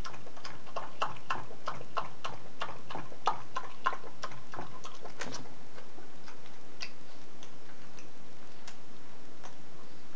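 A long-haired dachshund lapping liquid from a drinking glass, a regular run of wet clicks about three a second that stops about halfway through.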